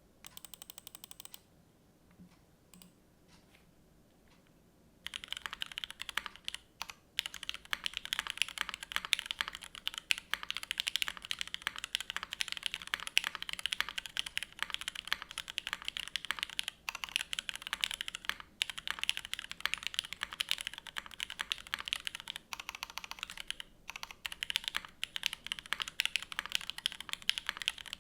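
Typing on a Keycult No.2 TKL mechanical keyboard with Cherry MX Nixie switches: a dense, continuous stream of keystroke clacks starting about five seconds in, with a few short pauses.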